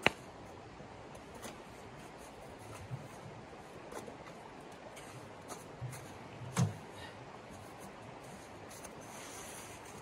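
Light handling sounds: scattered soft knocks and rubbing, with a sharp click at the start and a heavier thump about six and a half seconds in, over a steady low hiss.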